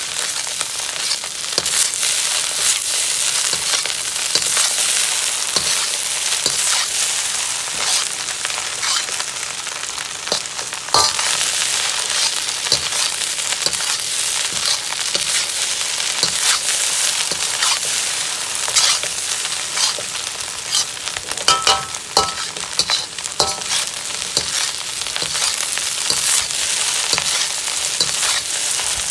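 Shrimp fried rice sizzling in a hot wok, tossed and scraped continuously with a metal spatula, the rice fried dry. Steady sizzle with constant scraping clicks of the spatula on the pan, and a few louder ringing metal scrapes about eleven seconds in and again around twenty-two seconds.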